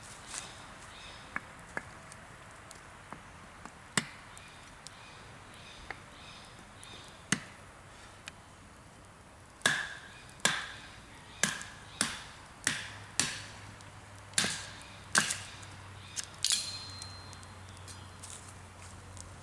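Wood being chopped with a blade: a few scattered strikes, then a quick run of about a dozen strikes, roughly two a second, in the second half.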